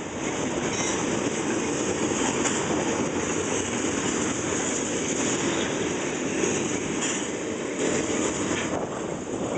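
Double-stack intermodal container train rolling past: the steady rolling noise of its well cars' wheels on the rails.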